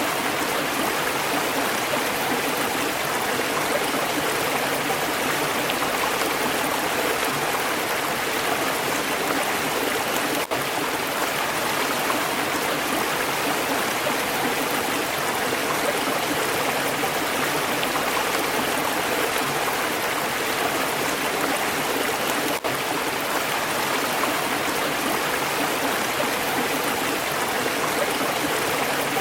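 Water of a stream flowing steadily, with two momentary dropouts about ten and twenty-two seconds in.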